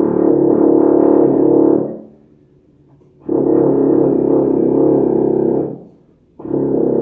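King 2280 euphonium playing a slow descending scale in long held notes, each about two seconds with a short pause between: two notes and the start of a third.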